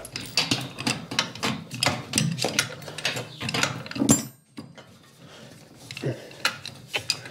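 Irregular metallic clicking and clatter of hand tools working on bolts, with one sharp knock about four seconds in.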